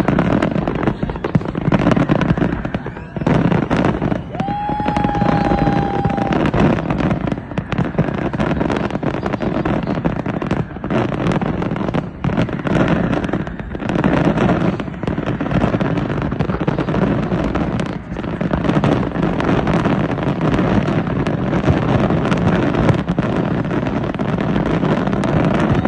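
Many fireworks going off at once in a dense, unbroken crackle of bangs and pops. A steady whistle sounds for a couple of seconds about five seconds in.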